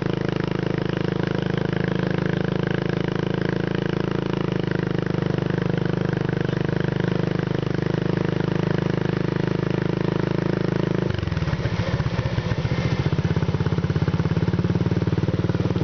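ATV engine running under way, with a steady note that changes abruptly about eleven seconds in to a slightly louder, throbbing one.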